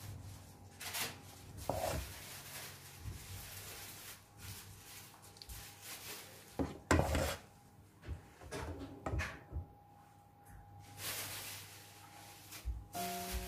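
A plastic ladle scooping thick cake batter and scraping and tapping against ceramic bowls and a steel mixing bowl, giving scattered soft knocks and scrapes, the loudest about halfway through.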